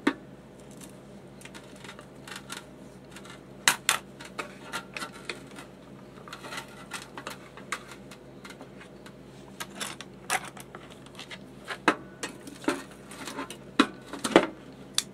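Scattered clicks, taps and light knocks of a NuWave infrared oven's plastic dome and wire cooking rack being handled and seated on the base. The loudest knocks come about four seconds in and near the end.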